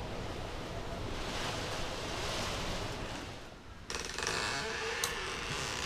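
Storm wind from Hurricane Irma, a steady rush heard from inside a small shed. About three and a half seconds in it dips, then comes back suddenly and more directly once the door is open, with a few sharp clicks near the end.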